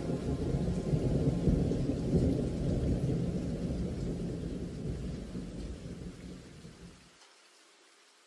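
A low, rolling rumble that dies away over a few seconds and cuts off about seven seconds in.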